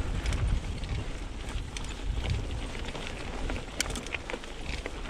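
Mountain bike rolling over a rough trail: tyre noise and bike rattle with scattered sharp clicks and knocks, over a low wind rumble on the chest-mounted microphone.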